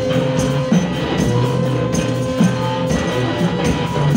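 Live instrumental music from a trio of modular synthesizer, bass guitar with effects, and drums: low sustained bass notes under a held higher tone, with regular drum hits.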